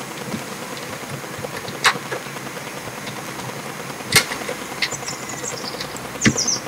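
Computer keyboard keys pressed one at a time, a handful of sharp, widely spaced clicks over a steady background hiss.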